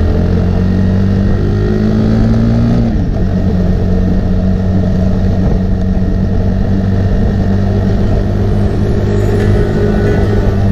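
A motor vehicle's engine running steadily, its pitch dropping about three seconds in as the revs fall.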